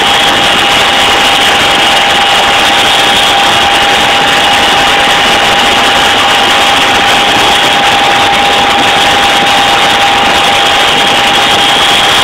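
Chinook helicopter in flight, heard from inside the cabin: a loud, even rush with two steady high-pitched whines over it.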